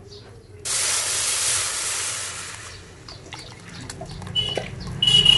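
Dissolved palm jaggery liquid poured through a plastic tea strainer into a steel pan, to strain out grit. A sudden even hiss starts about half a second in and fades over the next two seconds, and a few short high chirps come near the end.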